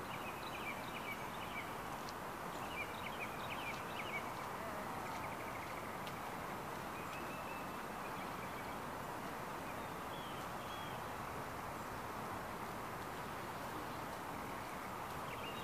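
Steady outdoor background noise, with faint bird chirps a few times.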